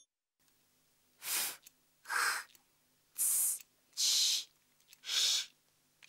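A girl's voice whispering five short hissing and hushing consonant sounds, one after another about a second apart, which fit the voiceless letter sounds Ф, Х, Ц, Ч, Ш being said under the breath. A faint steady hum lies underneath.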